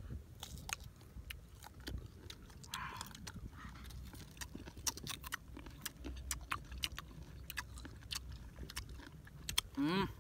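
Someone biting and chewing crunchy fruit close to the microphone: irregular sharp crunches, several a second.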